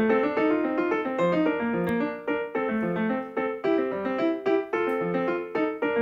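Piano background music: a steady run of gentle piano notes.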